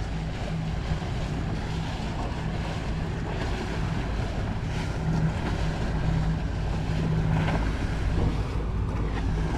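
Wind buffeting the microphone and waves against a small boat's hull, with the steady hum of a nearby boat's outboard motor underneath.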